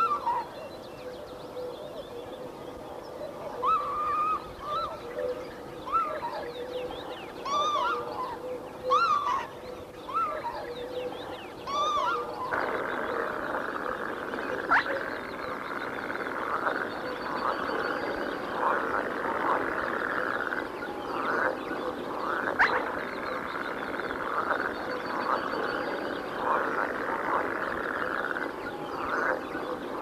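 Birds calling, with short repeated whistled notes that rise and fall. From about twelve seconds in, a dense, continuous chorus of rapid chattering animal calls joins them.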